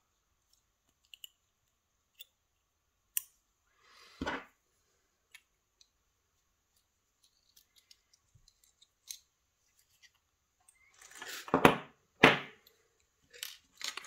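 Small metal clicks and scrapes from handling the parts of a hand-made Marc 6 challenge lock as its core is worked out with a shim and key. There is a single knock about four seconds in and two louder metal scraping clunks close together near the end.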